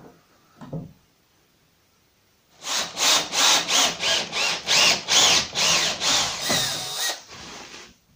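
A cordless drill boring into timber in short bursts, about two a second, the motor pitch rising with each trigger pull, after a few faint clicks at the start.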